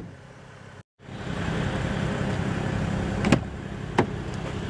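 Car door being opened: two sharp latch clicks about three and four seconds in, over the steady low hum of the BMW 335i's turbocharged straight-six idling.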